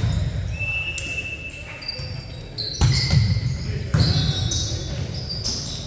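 Indoor volleyball play: the ball is struck sharply twice, about three and four seconds in, while sneakers give short squeaks on the hardwood gym floor.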